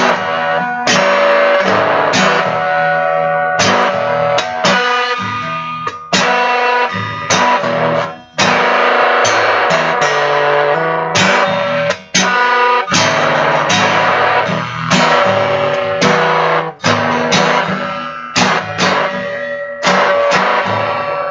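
Guitar music: strummed and plucked guitar chords played through effects, with a bass line, loud throughout.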